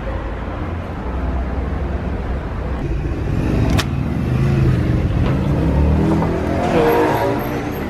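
Street traffic: cars driving past with a steady rumble, one of them picking up speed near the end. A single sharp click sounds about four seconds in.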